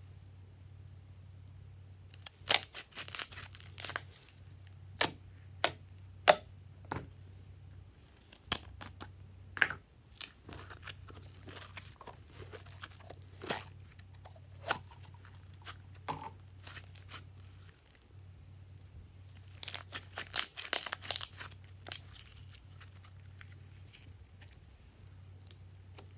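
Glossy slime being stretched, squeezed and poured by hand, making sticky clicks and pops: a dense run about two seconds in, scattered ones through the middle, and another dense run near the end. A steady low hum sits underneath.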